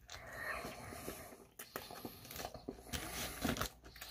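A person biting into and chewing a burger close to the microphone: faint wet mouth sounds with a scatter of small clicks and smacks.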